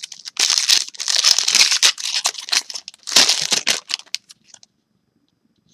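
Foil wrapper of a Yu-Gi-Oh! booster pack being torn open and crumpled in the hand. There are two bursts of crinkling, a long one and then a shorter one about three seconds in.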